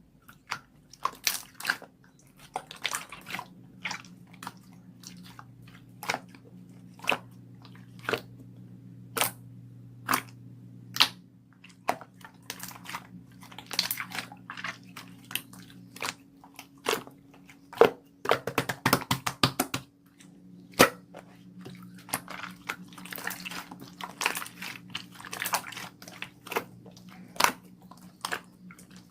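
Irregular sharp crunching clicks, as of something chewing or biting crunchy food, over a steady low electrical hum.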